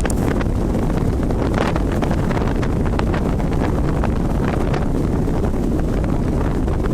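Wind buffeting the microphone aboard a boat under way: a steady low rumble with scattered short crackles.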